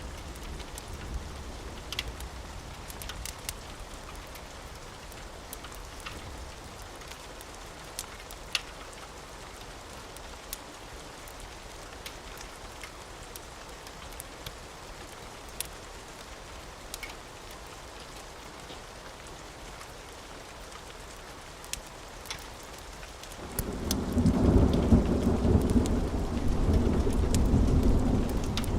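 Steady rain with scattered sharp crackles from a fireplace. About two-thirds of the way in, a loud low rumble of thunder starts and keeps rolling.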